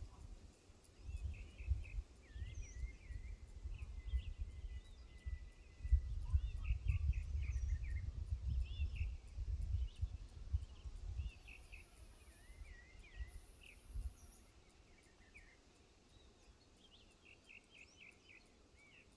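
Several birds chirping and calling, short repeated notes throughout. Wind buffets the microphone in low rumbling gusts, heaviest in the middle, then eases off about eleven seconds in. Twice, briefly, a high hiss.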